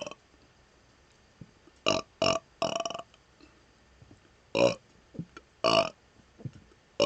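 A man burping repeatedly: about five short, separate burps, a quick pair followed by a longer one about two seconds in, then two more about a second apart.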